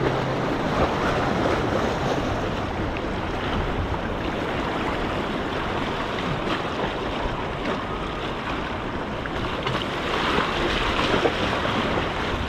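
Sea surf washing and sloshing against shoreline rocks, a steady wash that swells a little near the end, with wind buffeting the microphone.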